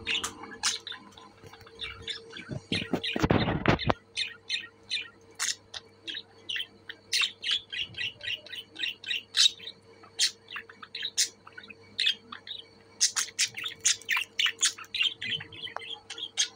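Budgerigars chirping and chattering in many quick, short calls. About three seconds in there is a loud burst of noise lasting about a second.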